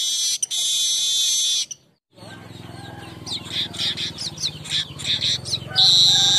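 Manyar weaver birds singing: a long buzzy chatter that cuts off abruptly just before two seconds in, then after a short gap a run of quick chirps over a low hum, and the buzzy chatter starting again near the end.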